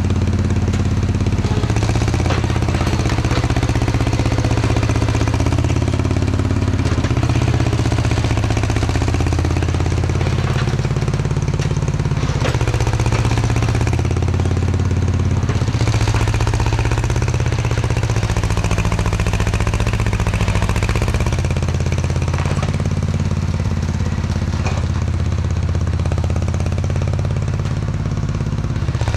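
Diesel engine of working earthmoving equipment running steadily under varying load, with scattered clanks and knocks from the machine at work.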